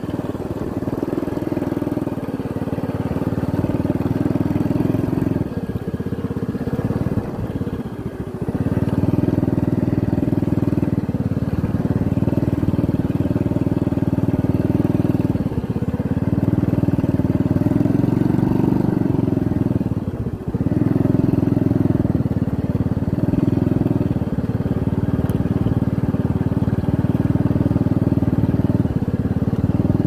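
Small motorcycle engine running steadily while riding a dirt track, easing off briefly a few times as the throttle is let off and then picking up again.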